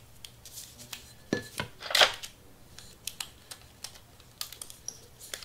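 Scattered light clicks and crisp rustles of hands working paper around a sublimation tumbler, trimming the paper wrap and pressing heat-resistant tape onto it. The loudest is a short sharp snap about two seconds in.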